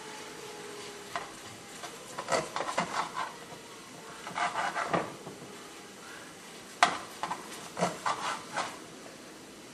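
A utensil stirring and scraping in a pan on the stove, in several short bouts of clinks and scrapes, over a faint steady sizzle of food cooking.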